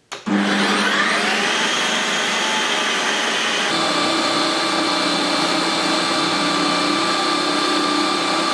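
Ninja Creami NC300EU ice cream maker starting its sorbet program on a pint of frozen orange mix: a click, then the motor spins up with a rising whine and settles into a loud, steady run. About three and a half seconds in, its sound changes abruptly and becomes fuller and deeper.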